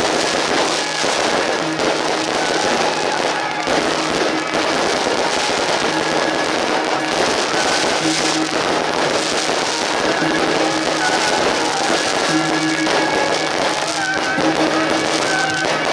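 Rows of ground fireworks and firecrackers going off without pause, a dense steady crackling and popping, with music playing underneath.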